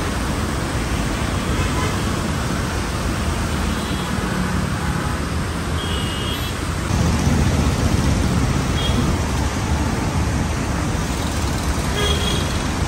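Steady city road traffic: cars, buses and motorbikes passing on rain-wet roads, tyre noise under engine noise, with a few brief high tones.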